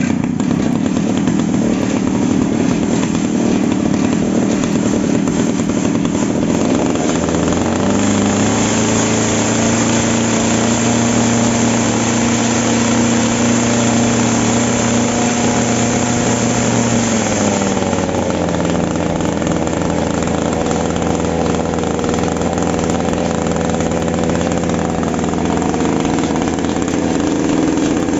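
Matsumoto MED-680 earth auger's two-stroke petrol engine running. It starts at a lower speed, is revved up about eight seconds in and held there for about ten seconds, then drops back, with another rise near the end.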